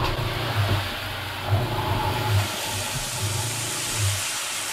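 Shower faucet running water into a boat's shower pan, a steady splashing hiss, with the freshwater pump humming in uneven pulses underneath. The cold line is being flushed until marine antifreeze comes through, for winterizing.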